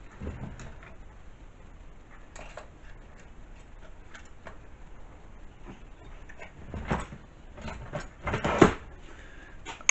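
Steel parallels and a workpiece being handled in a milling machine vise: scattered light metal clinks and clunks, with louder knocks about seven and eight and a half seconds in.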